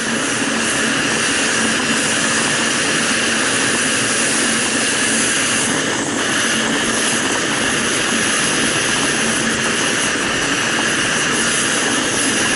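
Small portable propane camping stove burner running turned up, giving a steady, even hissing roar.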